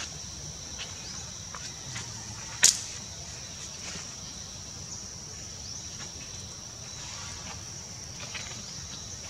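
Forest ambience: a steady high-pitched insect drone, with faint scattered clicks and one sharp, loud click about two and a half seconds in.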